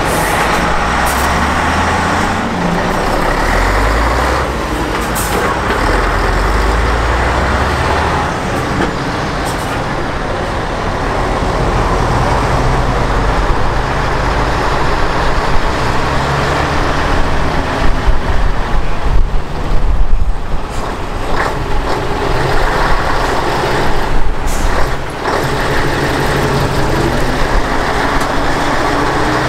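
Heavy diesel engines of a vintage city bus and an old Scania semi-truck running and moving off, a steady deep engine drone. A few short, loud bursts come about two-thirds of the way through.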